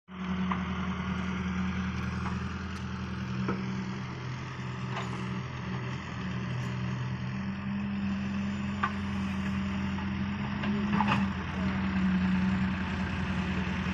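Excavator's diesel engine running steadily, with a few short sharp knocks or clanks at irregular intervals.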